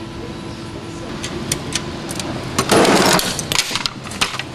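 Handling of tools and objects on a cluttered workbench: scattered sharp clicks and knocks, with a short, loud rustling clatter a little under three seconds in.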